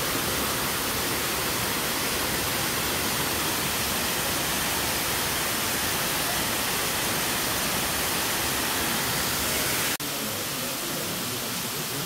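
Waterfall rushing: a steady, even hiss of falling water. About ten seconds in it breaks off for an instant and goes on slightly quieter.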